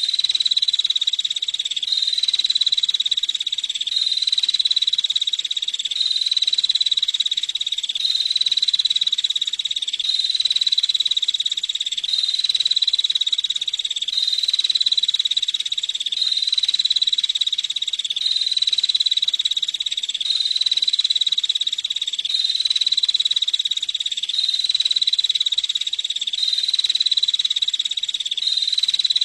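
Female prinia (prenjak) calling a rapid, buzzy, unbroken trill at a high pitch, repeating in near-identical phrases about every two seconds, like a looped recording.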